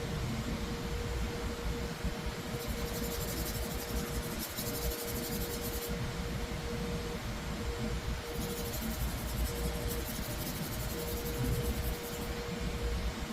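Scissor-sharpening machine running with a steady hum and a held tone, and two stretches of high hiss a few seconds each, as a blade is worked on it.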